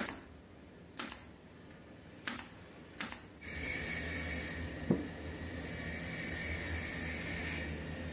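Pneumatic brad nailer firing into wood: four sharp shots, each with a short hiss of exhaust air, about a second apart. After them a steady background hum, with a single knock about five seconds in.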